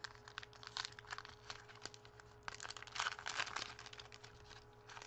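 Crinkling of a foil trading-card pack wrapper and cards being handled: a string of small scattered clicks and rustles.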